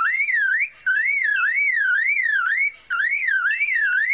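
Superb lyrebird mimicking a car alarm: a whistled tone sweeping up and down about three times a second, in runs broken by two short pauses.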